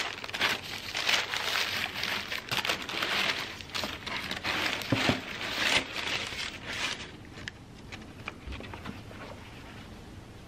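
Plastic shoe bags rustling and crinkling as a pair of running shoes is pulled out of a cardboard shoebox, in irregular bursts that die down after about seven seconds.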